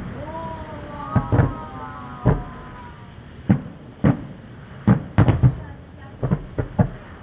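Aerial fireworks going off: several whistles rise and hold during the first few seconds, and a string of sharp bangs bursts at irregular intervals, about a dozen in all.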